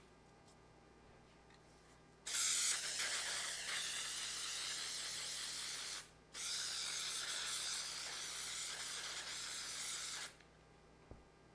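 Aerosol can of automotive spray-on adhesive spraying in two long hissing passes, about four seconds each with a brief pause between, starting about two seconds in.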